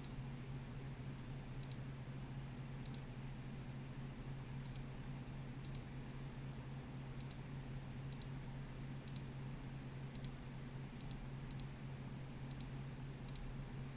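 Computer mouse clicked repeatedly at an irregular pace, some clicks coming in quick pairs, over a steady low hum.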